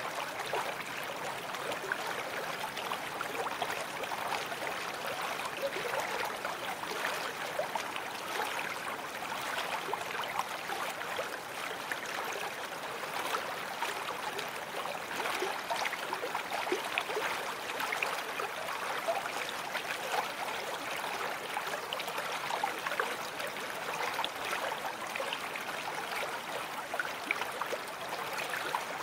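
Babbling brook: a steady, unbroken rush of running water, flecked with many small quick splashes.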